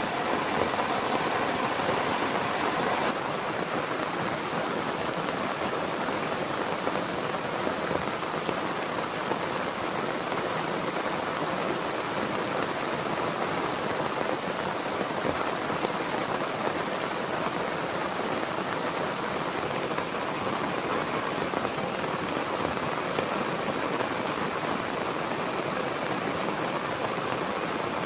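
Heavy rain falling steadily, an even hiss of many drops, a touch louder in the first three seconds.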